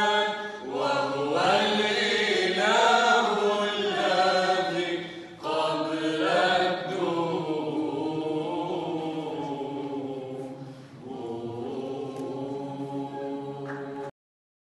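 Youth choir singing Arabic Byzantine chant a cappella, the melody moving over a low note held steady underneath in the second half. The sound cuts off abruptly near the end.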